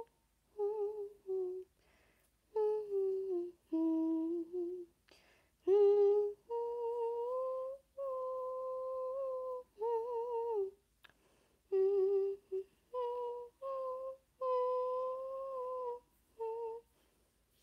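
A person humming a slow tune in a high voice: a string of held notes with short breaks between them.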